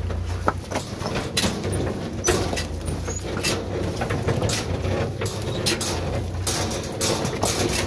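Iseki 6500's engine running with a steady low drone, with scattered sharp knocks and rattles over it.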